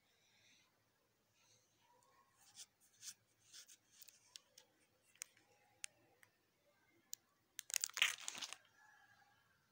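Plastic photo-album sleeves crinkling and rustling under the hands as the pages are handled: a scatter of small clicks and crackles, then a louder crinkling rush about eight seconds in as a page is turned.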